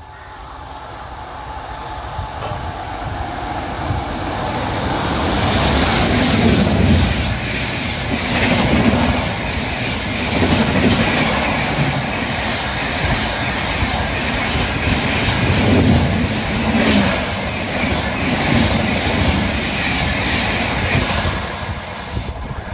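Passenger express of LHB coaches hauled by a WAP7 electric locomotive running through at about 131 km/h. The noise of wheels on rail builds over the first few seconds, stays loud with repeated swells as the coaches pass, and eases off near the end as the train draws away.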